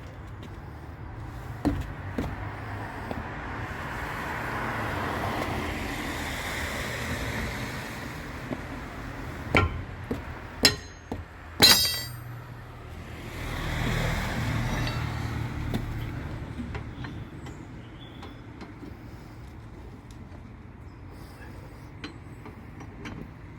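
Two vehicles pass by on the road, each swelling and fading. Over them come a few sharp metallic clinks of a steel wheel brace on a van's wheel nuts, the loudest about twelve seconds in.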